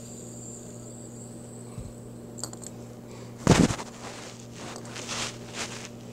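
Handling noise: one loud, short knock just past halfway, then a few soft rustling swishes, over a steady low hum.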